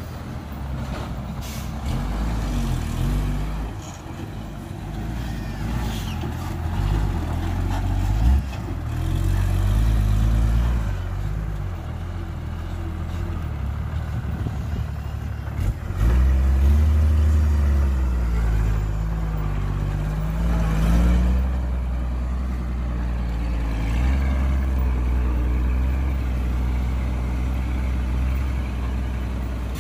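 Heavy diesel dump truck engine running under load, its note rising and falling as it revs, and getting louder and heavier about halfway through.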